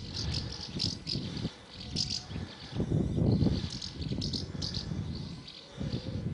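A flock of house martins flying overhead, giving short, repeated twittering chirps, over bursts of low rumble that are loudest about three seconds in.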